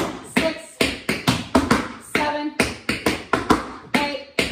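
Tap shoes striking a portable tap board in a quick, even stream of sharp taps, several a second: stamp, hop, step, flap, step time steps danced at a quick pace.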